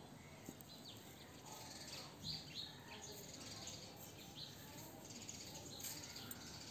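Faint background of birds chirping: short, high chirps scattered through a quiet hiss.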